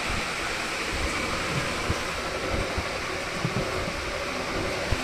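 Washing machine running with a steady whooshing noise and scattered low knocks, a sharper one near the end.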